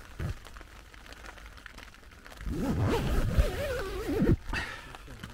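A man's drawn-out, wordless vocal noise about two seconds long, its pitch rising and then wavering up and down, over faint rain pattering on a tent fly. A brief low thump sounds just after the start.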